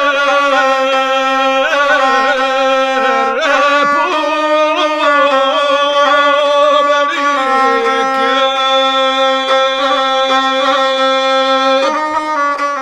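Gusle, the single-string bowed Balkan folk fiddle, playing an ornamented instrumental passage that stays close to one note, fading out near the end.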